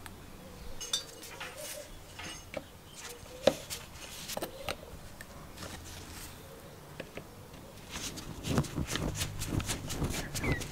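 Light clicks and clinks of a screwdriver and screw on the end cap of a Sprayit diaphragm airbrush compressor's motor, turning into a quicker run of clicks and knocks in the last few seconds as the screw is driven in.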